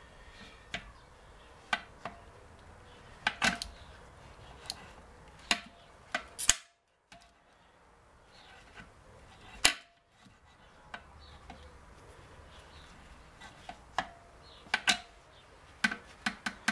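Sharp metallic clicks and clinks, a dozen or so at irregular intervals, as gearbox selector fork parts and tools are handled against the stripped gearbox casing. The background cuts out briefly twice near the middle.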